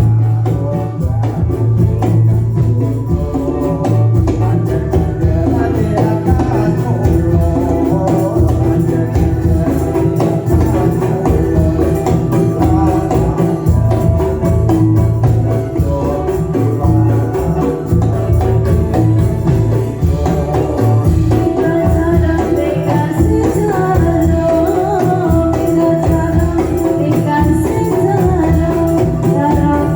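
Ndolalak dance accompaniment: a steady drum beat with jingling tambourine and a melody line that grows stronger in the last third.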